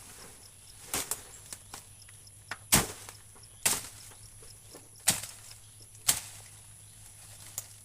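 Sharp blows of a hand tool striking wood, five strong ones roughly a second apart with lighter taps between, as timber is worked while the field hut is cleared and repaired.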